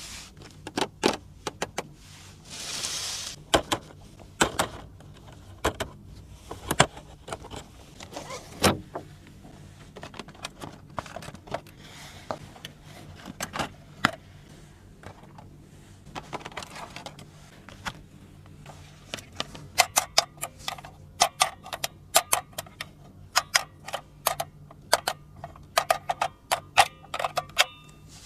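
Small toy furniture pieces clicking and tapping as they are handled and set in place, with a brief rustle of packaging about three seconds in. The clicks come thick and fast near the end.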